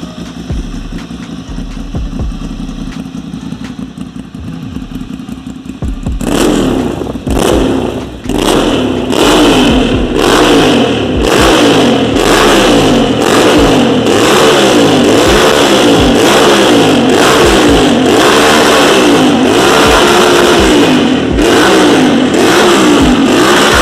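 Ducati Monster 796's air-cooled L-twin engine through an aftermarket Hurricane exhaust, running quietly for the first few seconds, then revved repeatedly and loudly, its pitch rising and falling about once a second.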